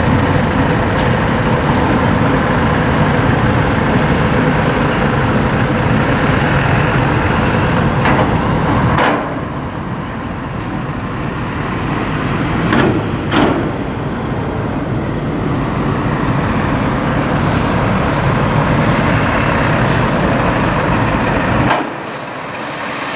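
Steady loud rumble of bus engines idling, with a few short air-brake hisses near the middle. The rumble eases about nine seconds in.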